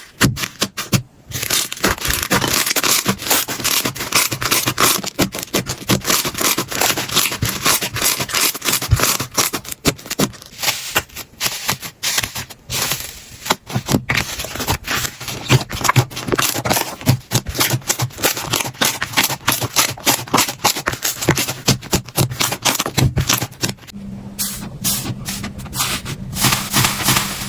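Slime being handled close up: a dense run of crackling, clicking and scraping sounds, its character changing abruptly about a second in, about halfway, and near the end.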